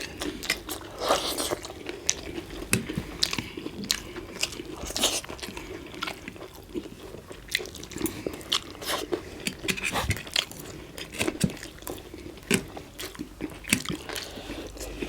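Close-up eating sounds of chilli chicken momos (steamed dumplings) being bitten and chewed: many short, irregular wet mouth clicks and smacks.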